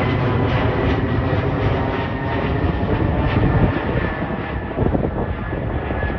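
Alaska Airlines Boeing 737 jet departing overhead: the steady roar of its engines with a faint whine above the rumble, easing a little in the last couple of seconds.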